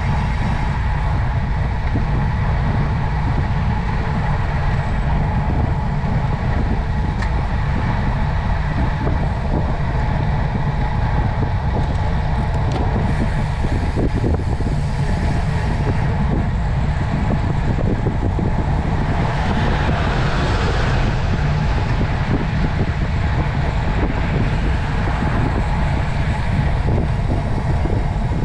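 Steady low rumble of wind and road noise picked up while riding, with a louder rushing swell about twenty seconds in.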